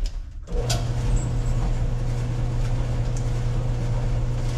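GE Spacemaker stacked electric dryer starting up about half a second in, then its motor and drum running with a steady low hum. It runs without squeaking, its drum bearing replaced.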